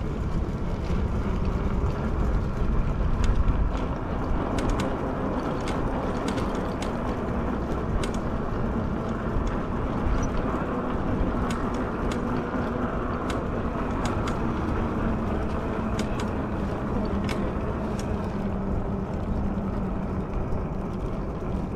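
Fat-tire e-bike riding over bumpy brick and paving stones: a steady rolling rumble and hum, with frequent sharp clicks and rattles as it jolts over the uneven surface.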